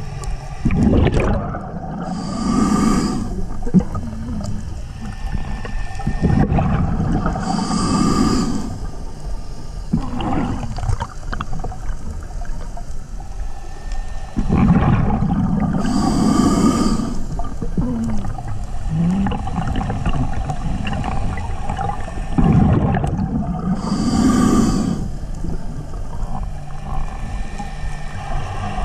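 Scuba diver breathing through a regulator underwater: hissing inhalations and rumbling, bubbling exhalations, four breaths roughly every six to eight seconds.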